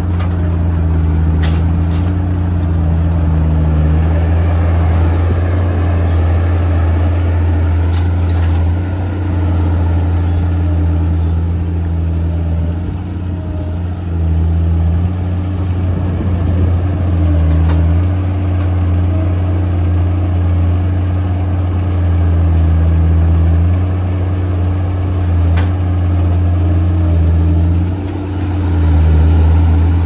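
A John Deere skid steer loader's diesel engine running steadily up close. Its low note shifts a little every few seconds while the loader works a bale grabber.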